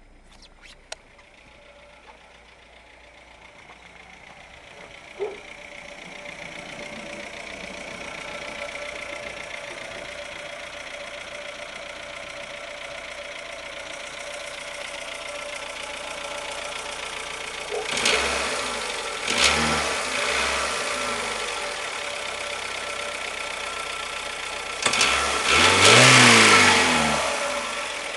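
Renault Logan 1.6 8-valve four-cylinder engine running with a knock whose cause the owner does not know. It grows louder over the first several seconds, is revved briefly twice past the middle, and gets a longer rev near the end.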